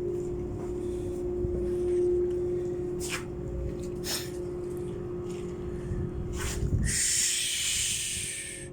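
Ship machinery hum, a steady tone over a low rumble, with a few light knocks. About seven seconds in, a loud high hiss cuts in suddenly.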